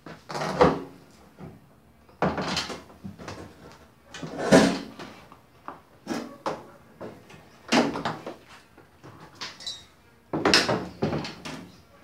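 Repeated clunks and scraping of washing machine parts being handled and fitted back together, about six separate bouts of knocking with short pauses between.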